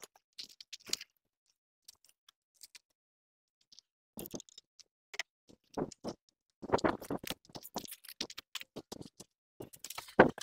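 Scattered light clicks and crunches of footsteps on loose gravel around a parked e-bike, in short clusters about six seconds in and again near the end.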